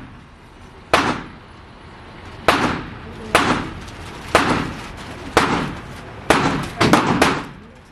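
A string of about eight gunshots, roughly one a second and a bit faster near the end, each sharp crack trailing off in a short echo.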